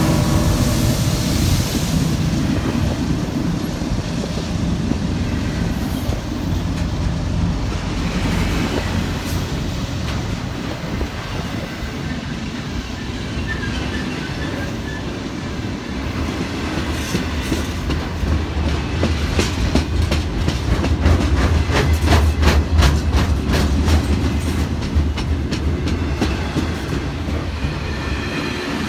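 Cars of a freight intermodal train rolling past with a steady low rumble; about two-thirds of the way through, wheels start clicking over rail joints in a fast clickety-clack rhythm that is loudest shortly after.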